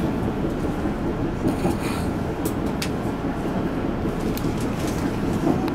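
Steady running rumble of a British-built EMU100 Tze-Chiang express electric train, heard from inside a passenger car while the train is under way, with a few sharp clicks through it.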